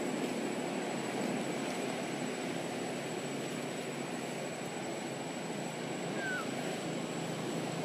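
Steady, even outdoor background noise, mostly low and mid in pitch, with a thin steady high tone throughout. A single short falling chirp comes a little after six seconds in.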